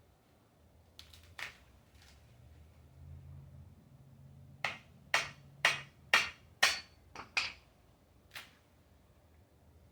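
Hammer striking a screwdriver driven into a coconut's fibrous husk to pry it off: a run of about six sharp strikes, about two a second, starting a little before halfway through, with a few lighter knocks before and after.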